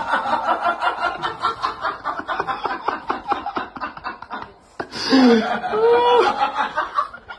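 A person laughing in quick, breathy snickers. About five seconds in, after a click, the voice turns to drawn-out exclamations that slide in pitch.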